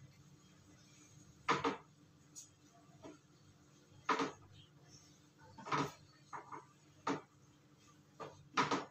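Spatula stirring clams in a frying pan: short clattering scrapes of spatula and shells against the pan, five or so a second or two apart.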